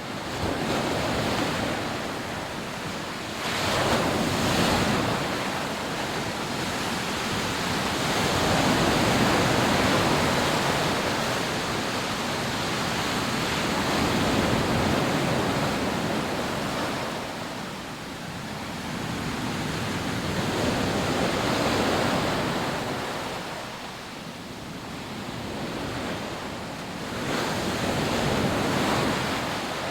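Rough sea surf breaking on a sandy beach: a continuous rush of waves that swells and recedes every few seconds, with some wind on the microphone.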